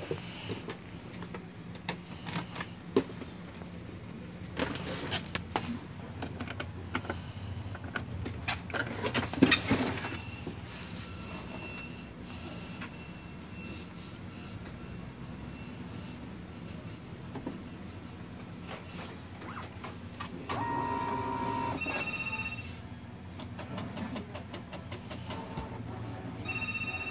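Brother DCP-T700W inkjet printer powering up and running its initialization cycle: knocks and clicks as the lid is handled in the first seconds, then the print mechanism's motors whirring steadily, with a louder motor whine about twenty seconds in.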